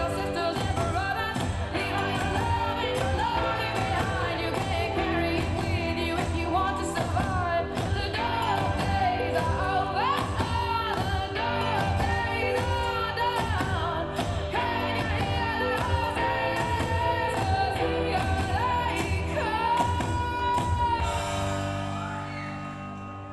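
Backing music for a dance routine: a song with a singing voice over a steady beat. Near the end the beat drops out and the music grows quieter.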